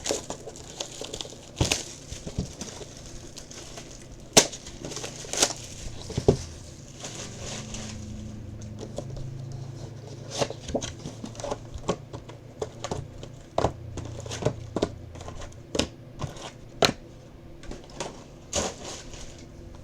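Plastic shrink-wrap being torn and crumpled as a sealed box of trading cards is opened, with scattered crinkles, clicks and handling taps of cardboard and wrapper. A low steady hum joins in for several seconds in the middle.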